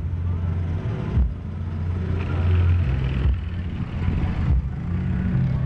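Bass-heavy car audio system playing, its subwoofers holding low notes that step up and down in pitch a few times.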